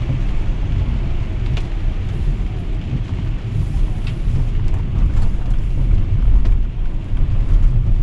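Steady low rumble inside a Tesla's cabin as it drives through heavy rain, tyres on the wet road and rain on the car, with a few faint ticks now and then.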